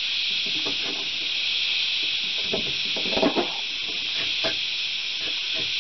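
A steady high hiss runs throughout, with light knocks and scrapes of metal parts as the tool rest of an old, rusty wood lathe is handled and adjusted; the clearest knocks come about three seconds in.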